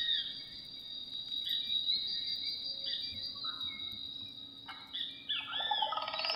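Ambient electronic soundscape music: a steady high, cricket-like drone with short gliding tones that arch up and down about once a second, growing louder and busier near the end.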